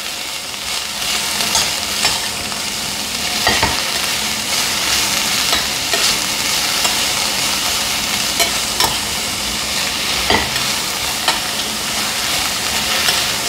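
Mixed vegetables sizzling in hot ghee in a stainless steel pressure cooker while being stirred with a metal slotted spoon, with a steady frying hiss. The spoon knocks and scrapes against the pot a few times.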